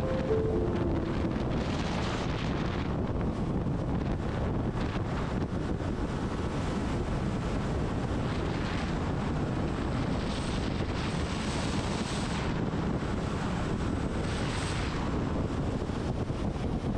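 Steady rush of wind over a helmet-mounted camera's microphone on a motorcycle at road speed, with a few brief swells of higher hiss.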